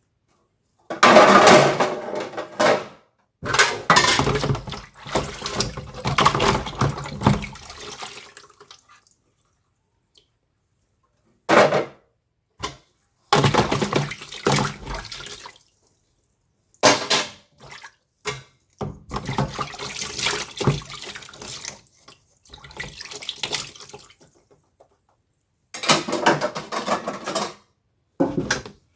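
Water pouring and splashing in a basin in about eight separate bursts of up to a few seconds each, with hard silent gaps between them, as in washing by hand.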